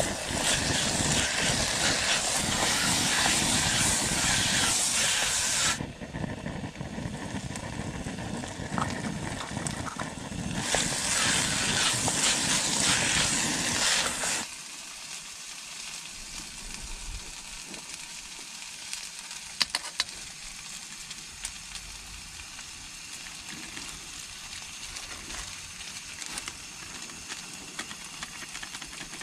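Onions, peas and green vegetables sizzling in oil in a camping pot on a small gas stove as they are stirred with a wooden spatula. The sizzling is loud for the first few seconds and again for a few seconds in the middle, then settles to a quieter steady hiss about halfway through, with a few sharp clicks.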